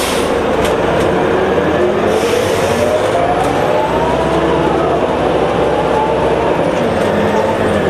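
Inside a 2003 New Flyer D60HF articulated diesel bus under way: the Detroit Diesel Series 50 engine drones and the Allison B500R automatic transmission whines. The whine rises in pitch for a couple of seconds, then falls away, and starts climbing again near the end.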